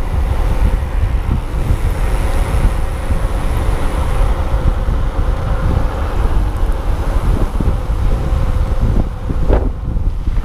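Wind rumbling on the camera microphone of a moving electric mountain bike, with the tyres rolling over the lane surface. A thin steady whine runs underneath, and there is a brief squeal about nine and a half seconds in.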